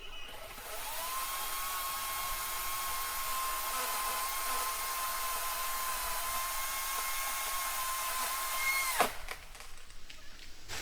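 Chainsaw running at high, steady revs with a sustained whine for about eight seconds. Its pitch rises a little and then drops away quickly about nine seconds in as the throttle is released.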